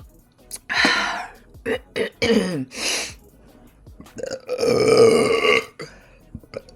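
A person burping several times in a row: a few short burps in the first three seconds, then one long, loud burp about four and a half seconds in.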